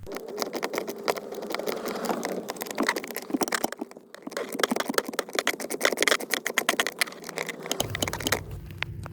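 A rapid, irregular run of hard clicks and rattles, with a low hum coming in near the end.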